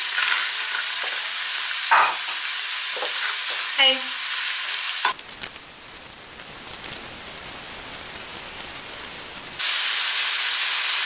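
Chopped onions and bell pepper sizzling in hot sunflower oil in a frying pan, stirred and scraped with a slotted spatula. The sizzle drops much quieter for about four seconds midway, then comes back at full strength.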